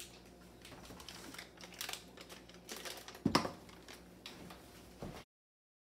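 Light clicks and rustling, then a dull thump about three seconds in as a block of butter is dropped into an empty stainless steel saucepan. The sound cuts off suddenly near the end.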